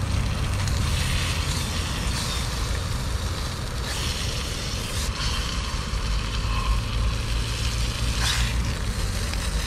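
Steady rumble of road traffic going round the roundabout. Over it, in patches, comes a hiss and sizzle from meat being turned in a pan on a gas camping stove.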